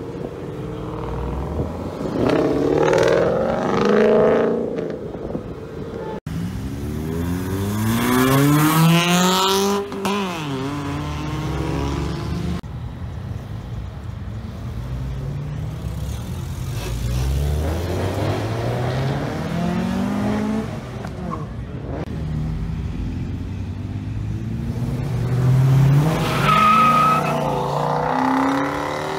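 Cars accelerating away one after another, each engine revving up in a rising sweep as it pulls out onto the street; the first is a Ford Mustang. Near the end there is a brief high squeal.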